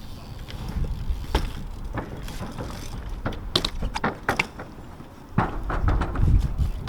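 A BMX bike being handled: scattered clicks and rattles of its parts over a low rumble, with a louder cluster of knocks near the end.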